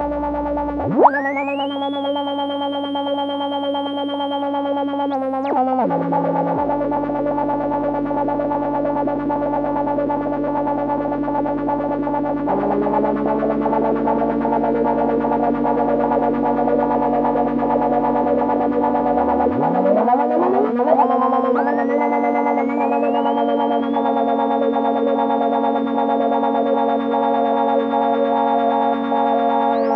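Electronic drone from a DIY Negistor cracklebox synth run through a dual auto-filter, with no reverb: layered, sustained buzzy tones. A high tone sweeps upward about a second in, the low drone shifts suddenly twice, and more tones glide up and settle about two-thirds of the way through.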